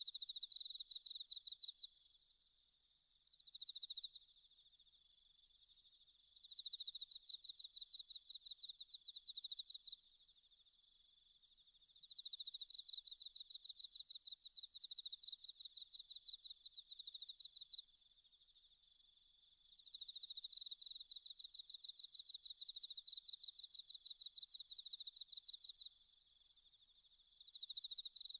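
Faint insect trilling: rapid, high-pitched pulsed chirps coming in bouts of a second to several seconds, with short pauses between them.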